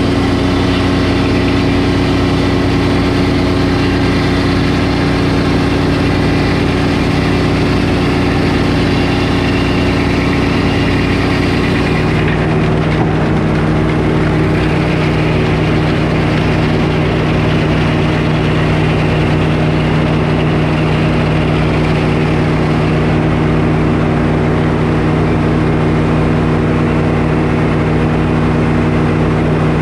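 Frick circular sawmill, its large blade driven by belts from an engine, running steadily while it saws a poplar board. About twelve seconds in the higher cutting noise drops away and the pitch of the engine shifts, leaving the engine and spinning blade running on.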